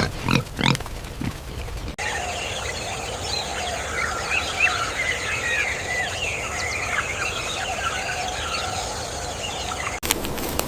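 Tropical rainforest chorus: many birds chirping and calling over one another above a steady high hiss. It starts about two seconds in, after a brief louder stretch of rough low calls, and breaks off near the end.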